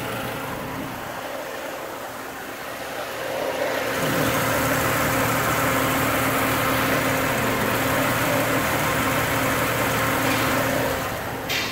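Chrysler PT Cruiser's four-cylinder engine idling with the AC compressor engaged and the accessory belt and pulleys turning, a steady hum that grows louder about four seconds in. The compressor is running with its pressure switch bypassed by a jumper wire, a sign that the switch is not closing the circuit.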